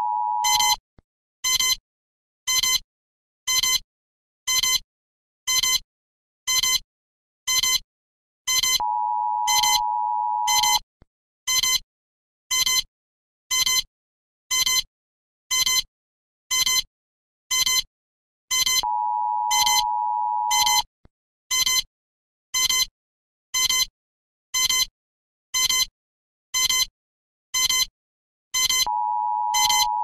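Emergency alert alarm: short electronic beeps repeating about one and a half times a second, broken every ten seconds by a steady two-second tone of two notes sounding together.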